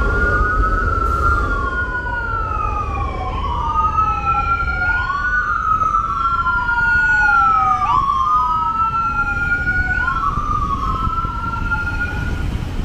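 Ambulance siren wailing, two overlapping tones each sweeping slowly up and down, over low city traffic rumble. The siren cuts off near the end, as an ambulance pulls up to an overdose call.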